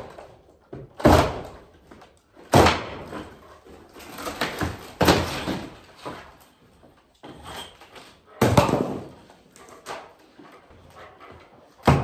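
Old wooden wall paneling being pried and torn off a wall: a series of sharp cracks and bangs a second or several apart as the panels split and give way.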